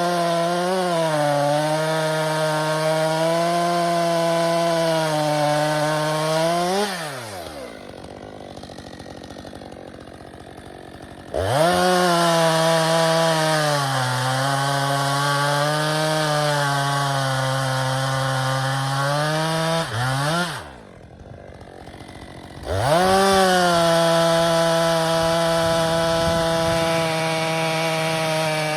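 Stihl 462 C two-stroke chainsaw run at full throttle through a log in three cuts, its pitch sagging under load. It drops back toward idle about seven seconds in and again about twenty seconds in, then revs up for the third cut.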